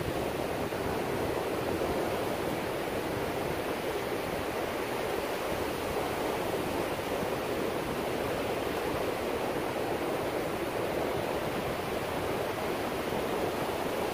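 Steady rush of ocean surf breaking and washing up the beach.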